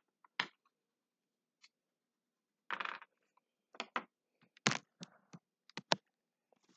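Handling noise: scattered light clicks and knocks, with a short scrape about three seconds in, as crayons are handled on the desk and the webcam is moved. The sharpest knocks come in the second half.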